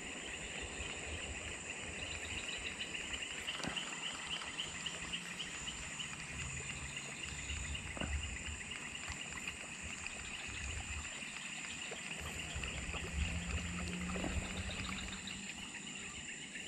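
Chorus of insects chirring: a steady, fast pulsing chirr with a thin, steady high-pitched whine above it, under faint low rumbles.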